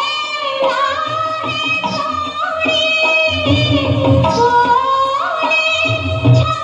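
Hindi film song: a woman sings long, wavering held notes that glide between pitches, over low drum strokes.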